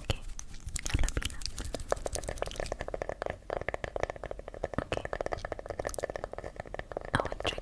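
Close-miked ASMR trigger sounds: a dense run of small clicks and crackles, thickening in the second half.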